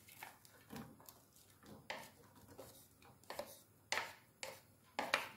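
Wooden spatula scraping chopped onions and green chilies off a steel plate into a pan: light, irregular taps and clicks of wood on metal and pieces dropping, about one every half second.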